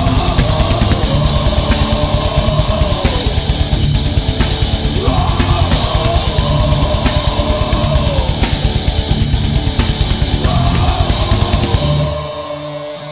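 Heavy metal band playing: fast, dense drums and distorted electric guitars under a high, sustained lead melody in three bending phrases. About twelve seconds in, the drums stop and a guitar chord is left ringing.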